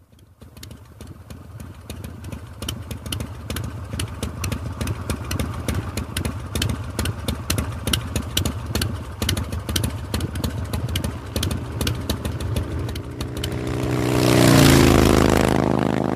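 Motorcycle engine running with a rough, uneven pulse, fading in over the first couple of seconds, then swelling louder near the end.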